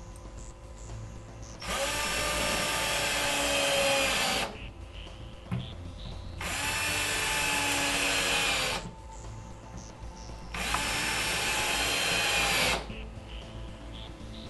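Cordless drill-driver driving screws through a metal drawer slide's bracket into a cabinet's wooden side, run three times for two to three seconds each.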